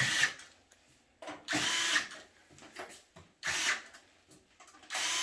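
Cordless power screwdriver running in four short bursts, driving in the screws of a copier's sheet-metal back panel.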